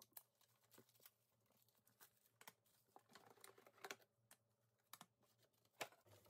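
Near silence with faint, scattered small plastic clicks and rustles: stove knob covers and their pack being handled.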